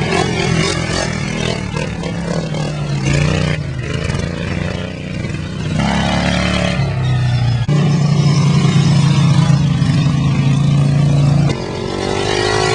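Souped-up racing lawnmower engines running hard, rising and falling in pitch as they rev, with the sound changing abruptly several times.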